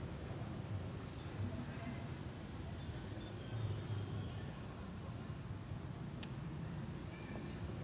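Steady high-pitched drone of insects, over a low rumble of outdoor background noise, with a few faint clicks.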